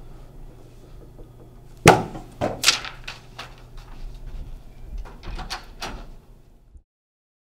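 A loud bang about two seconds in, followed by several shorter knocks and a scrape. The sound then cuts out to dead silence near the end.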